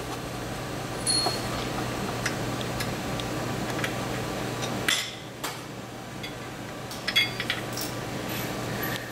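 Scattered metallic clinks and taps of hands and small parts working on a UTV's primary clutch, louder about a second in, about halfway through and in a quick cluster later on, over a steady low hum.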